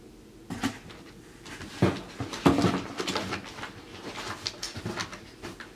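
Rummaging in a cardboard produce box: irregular rustling, scraping and knocks of cardboard and packaging as items are moved, loudest about two and a half seconds in.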